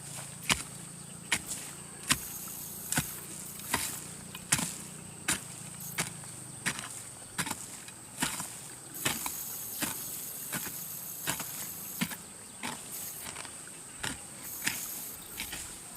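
Hand hoe chopping into grassy ground in a steady rhythm, one sharp strike about every three-quarters of a second.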